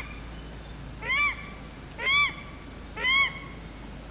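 Paradise shelduck calling: three short calls about a second apart, each a single note that rises and then falls in pitch.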